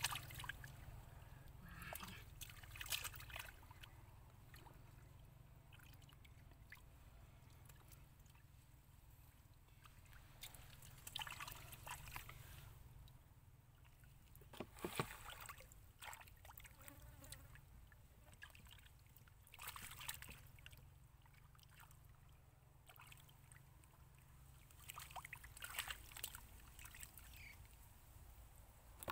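Faint, scattered splashing and trickling of shallow muddy water as hands grope through it and lift a fish out, over a low steady rumble.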